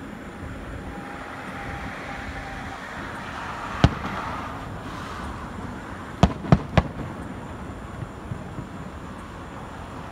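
Aerial firework shells bursting with sharp bangs: one about four seconds in, then three in quick succession a couple of seconds later, over steady background noise.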